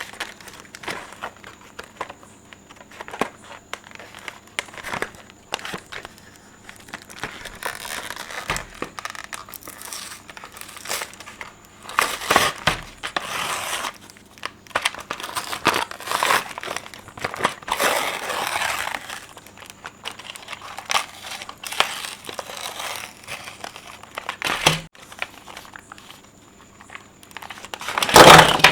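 Packaging of Hot Wheels die-cast toy cars being handled and opened by hand: irregular crinkling and crackling with scattered clicks. There are louder spells in the middle and the loudest burst comes near the end.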